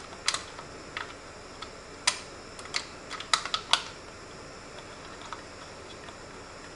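Light, sharp clicks and taps of a Phillips screwdriver working the screws of a PC case, irregular and bunched just before the four-second mark, then stopping.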